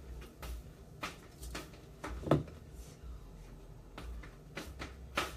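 A few scattered light knocks and thumps over a faint low hum, the loudest about two seconds in: someone moving about a small room.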